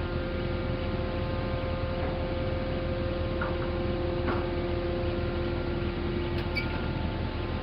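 Pile-pressing rig's engine running steadily with a constant hydraulic whine, while the pile is jacked into the ground without hammer blows. A few faint ticks.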